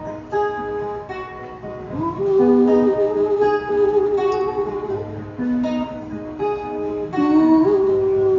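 Acoustic guitar strummed in a steady pattern. Above it a melody line is held long and wavers, sliding up into its notes about two seconds in and again near the end.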